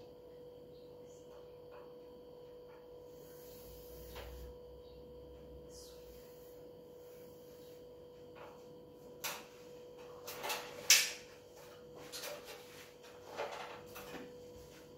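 Stepladder knocking and rattling as someone climbs down it: a run of knocks in the second half, the loudest about two-thirds of the way through, over a faint steady electrical hum.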